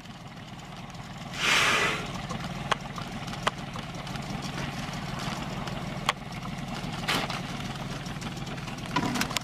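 Boat motor idling steadily, with a short loud rush of noise about a second and a half in and a few sharp clicks.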